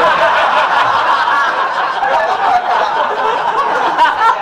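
An audience of many men laughing together in a long, continuous wave.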